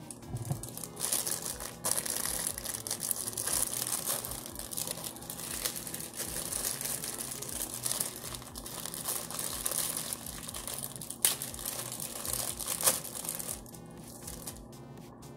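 Plastic packaging crinkling and rustling as it is handled, with scattered sharp crackles, thinning out near the end.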